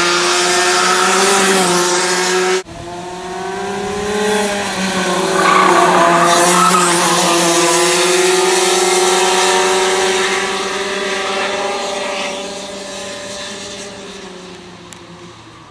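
Go-kart engines running at high revs on a kart track. There is an abrupt cut about two and a half seconds in. The engine note then climbs again, wavers, and fades away over the last few seconds.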